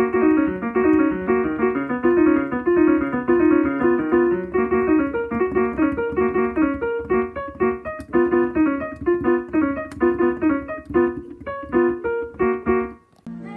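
Piano-style keyboard music playing a fast run of short, quick notes, which stops suddenly just before the end.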